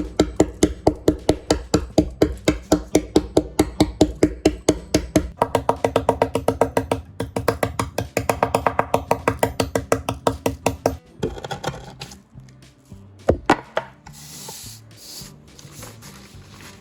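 Background music: a fast, even run of plucked, percussive notes at about four to five a second, which breaks off about two-thirds of the way in. A couple of sharp knocks and a short hiss follow near the end.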